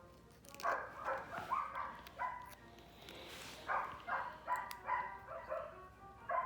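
A dog barking, short barks coming about every half second in two runs with a brief pause near the middle.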